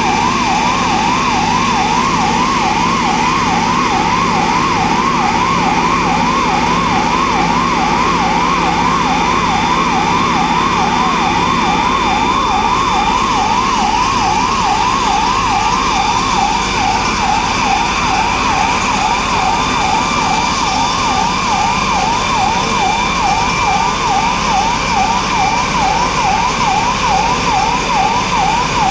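Electronic siren sounding continuously in a fast up-and-down yelp, its pitch sweeping a couple of times a second.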